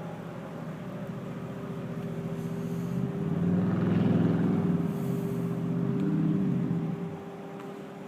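Distant low mechanical drone with a steady hum through it, constant rather than on and off, swelling louder about three seconds in and easing off near the end; it seems to come from the sky, and the recordist takes it for a vacuum truck working up on the valley rim.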